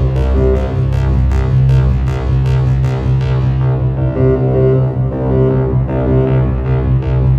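Live electronic music from a Buchla modular synthesizer: a deep sustained bass drone under a repeating pulsed figure of mid-register notes, with a fast ticking pulse on top that fades out about halfway through.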